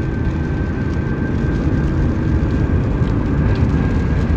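Car driving fast: steady road and wind noise from inside the cabin.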